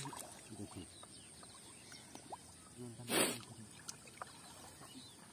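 Water sloshing and splashing as men wade and work a fine-mesh fishing net in shallow pond water, with one short, louder splash about three seconds in.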